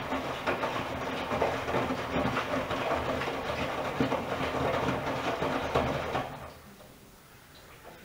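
Miele W1 front-loading washing machine's drum turning, with wet laundry tumbling and dropping inside it. The drum stops about six seconds in, and the sound falls away to a faint background.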